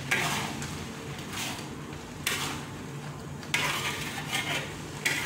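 Metal spoon scraping and stirring a thick spice paste around a metal wok, in a series of scraping strokes each about a second long.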